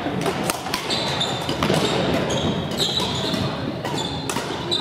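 Badminton rackets striking shuttlecocks in sharp, irregular cracks from the courts, with several brief high squeaks of court shoes on the wooden gym floor, over the steady din of a large sports hall.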